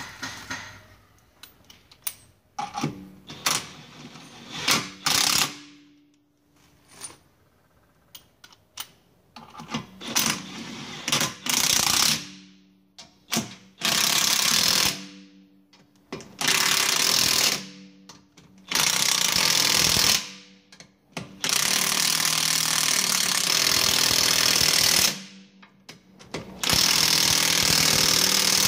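Cordless impact wrench hammering lug bolts tight on a car wheel, in about eight short bursts of a second or two each, with pauses between as it moves from bolt to bolt; one burst near the end runs about three and a half seconds.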